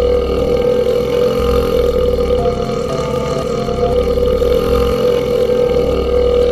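A man's belch held as one long, unbroken burp at a steady pitch.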